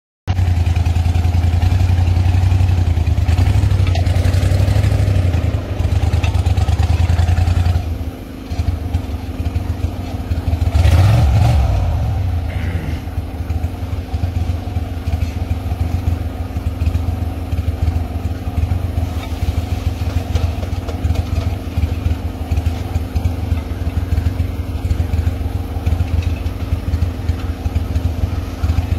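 A crawfish boat's engine running steadily with a low drone, briefly revving up and back down about eleven seconds in.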